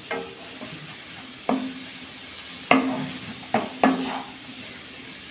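A spatula stirring red amaranth greens and onions in a kadai. It knocks sharply against the pan about five times, and each knock leaves a short ringing note, over a faint steady sizzle of the greens cooking in oil.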